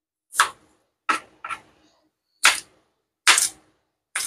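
A kitchen knife slicing a piece of ginger on a plastic cutting board: about six separate cuts at an uneven pace, each a short, sharp knock of the blade against the board.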